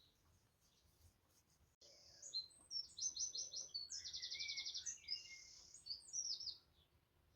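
A songbird singing: a run of varied high chirps with a fast, even trill in the middle, starting abruptly about two seconds in and stopping shortly before the end.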